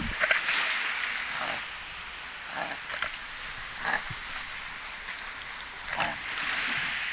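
Waves washing over a shallow reef shore, a steady hiss that swells and fades. Several short knocks and splashes come from handling a freshly landed fish.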